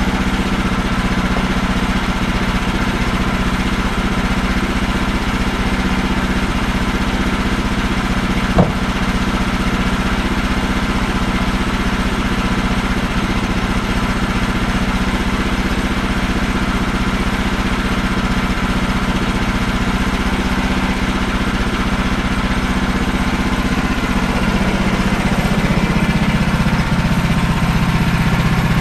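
Woodland Mills portable bandsaw sawmill's engine idling steadily, with one sharp knock about nine seconds in. The engine runs a little louder near the end.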